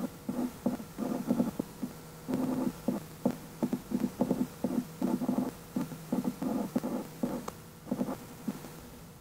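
An inking pen dragged across paper in rapid, repeated straight hatching strokes, about two or three strokes a second.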